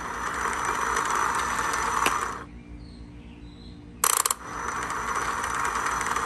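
Electric starter of a 1996 Evinrude 150 V6 outboard cranking the engine very slowly in two attempts. The first runs for about two and a half seconds; after a pause, a click about four seconds in starts the second. The engine does not catch, and the sluggish cranking is the sign of a failing starter motor.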